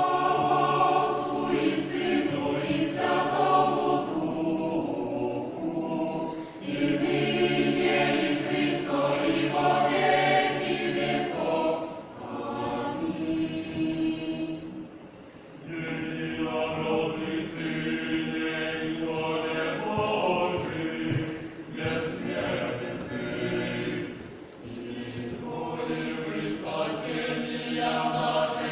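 Choir singing in long held phrases, with a brief pause between phrases about halfway through.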